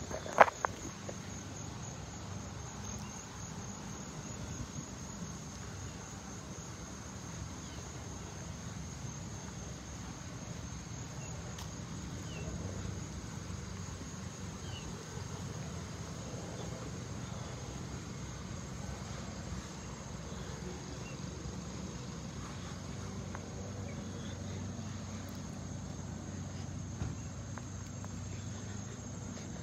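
A steady, high-pitched chorus of insects buzzing in the trees, with a low background rumble and a single sharp click about half a second in.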